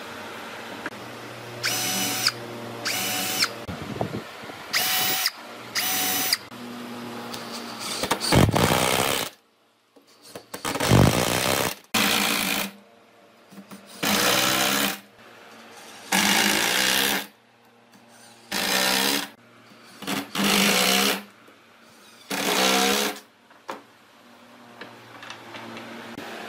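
Cordless drill/driver driving wood screws into a pine tabletop, running in about a dozen short bursts with pauses between them, its motor whine wavering as each screw bites.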